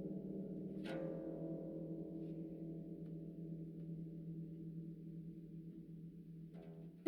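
Low harp strings ringing on and slowly dying away, with a soft new stroke about a second in that adds higher ringing tones, and a few faint touches on the strings near the end.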